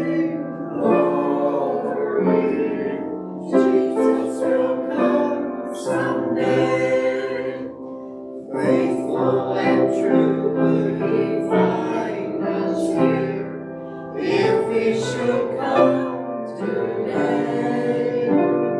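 Small church choir singing, sustained sung phrases with brief breaths between them.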